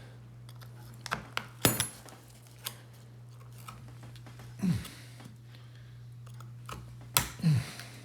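Sharp metallic clicks and taps of small pry tools working an iPod Classic's metal back case apart, the loudest click about a second and a half in. A steady low hum runs underneath.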